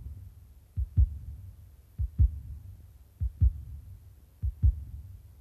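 Heartbeat sound effect: slow, steady lub-dub double thumps, four of them about 1.2 seconds apart, over a low hum.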